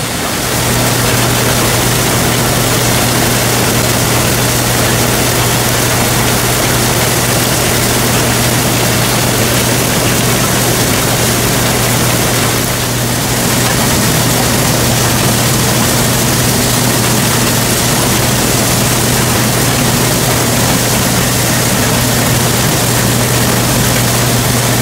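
Case International combine harvester running while it cuts soybeans: a steady low engine hum under a constant broad rushing noise from the working header, reel and auger.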